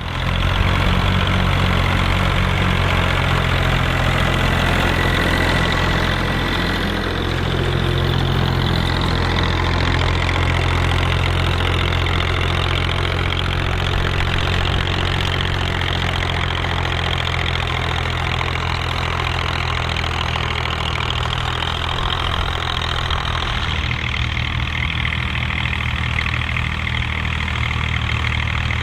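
Massey Ferguson 135 tractor engine running steadily, pulling a four-furrow plough.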